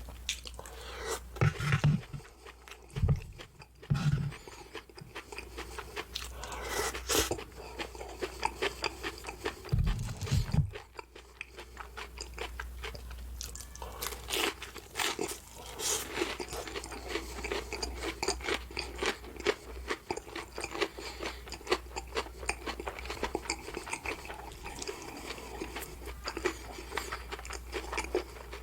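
Close-miked eating sounds: a person chewing and biting crisp food with a continuous crunch, in quick irregular strokes. A few short low thumps come in about two to four seconds in and again around ten seconds in.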